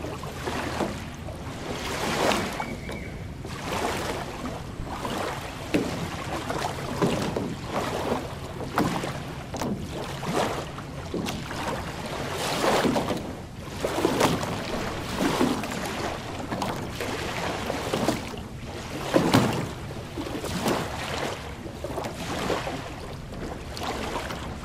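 Small lake waves lapping and washing onto a sandy shore, one soft surge after another at uneven intervals, the strongest about nineteen seconds in.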